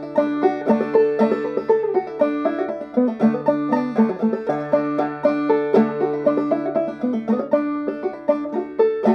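Banjo played clawhammer style, with a brass Joel Hooks thimble on the striking finger brushing and striking the steel strings. It is a steady, rhythmic stream of picked notes over a ringing lower string.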